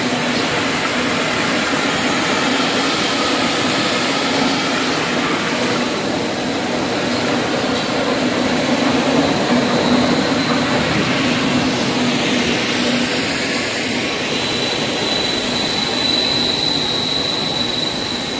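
Steady machine noise of a running PET monofilament extrusion line: a dense, even roar with a low hum and a thin high whine that gets stronger near the end.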